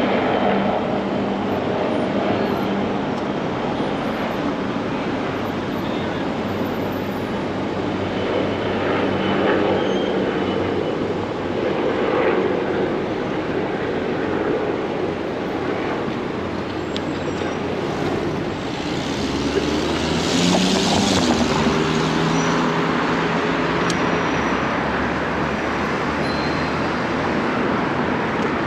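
Downtown city traffic heard from a moving bicycle: a steady wash of road noise from passing cars. About two-thirds of the way through, a vehicle's engine hums louder close by.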